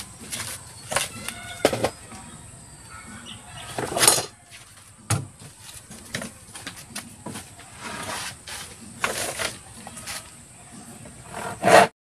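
Hand woodworking on a wooden boat plank: irregular scrapes and knocks of hand tools, with a handsaw cutting the plank in a few strokes near the end.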